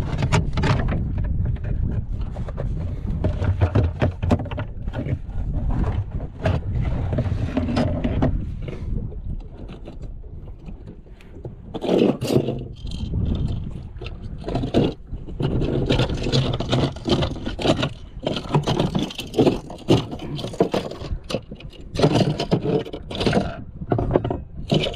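Knocking and scraping on a small boat's deck, coming thick and fast in the second half, over a steady low rumble of wind and waves.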